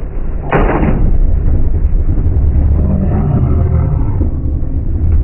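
A storm-chase vehicle strikes a downed power line, with a sudden sharp crack about half a second in, the impact that cost the vehicle its roof antennas. Loud, steady low rumbling noise follows.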